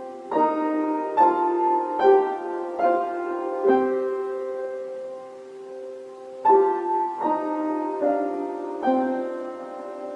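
Background piano music playing a slow melody, with notes struck one after another and a short lull in new notes midway.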